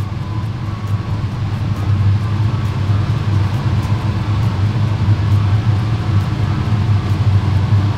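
Steady low machine hum with a faint hiss over it and a few light ticks.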